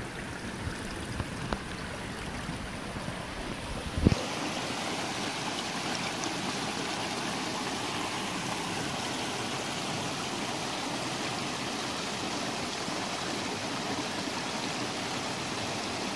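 Shallow mountain creek running over rocks and a small cascade: a steady rush and trickle of water. About four seconds in there is one sharp knock, after which the water sounds brighter and more even.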